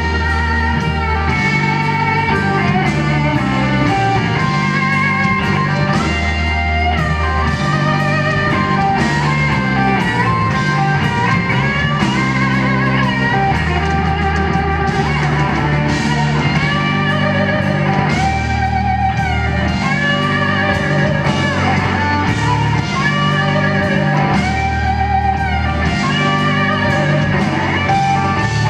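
Live blues-rock electric guitar solo, held notes sung out with wide vibrato, over bass notes that change every second or two and drums.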